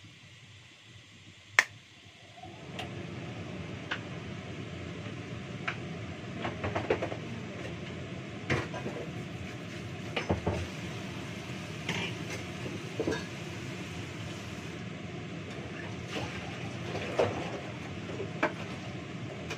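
Kitchen clatter: dishes, pans and utensils clinking and knocking now and then over a steady rushing noise that starts a couple of seconds in, after one sharp click.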